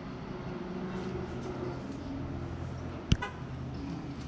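Steady low hum of a running vehicle engine, with one sharp click about three seconds in.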